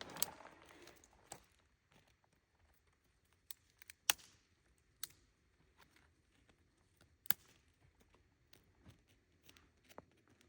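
Flint and steel being struck to light a fire: a few sharp, separate scraping clicks at irregular intervals, the loudest about four and about seven seconds in.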